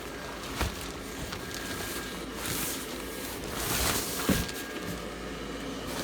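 Steady whir of an inflatable yard decoration's blower fan running, with a rustling swell in the middle and two short knocks, about half a second and four seconds in.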